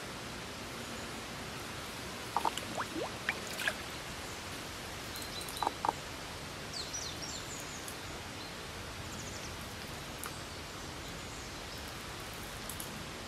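Steady outdoor background hiss with a few short bird chirps scattered through it: a cluster a couple of seconds in, two more around six seconds, and quick high, falling chirps just after.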